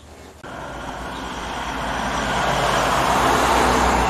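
A motor vehicle driving past on the road, its engine and tyre noise swelling to a peak about three and a half seconds in and then starting to fade.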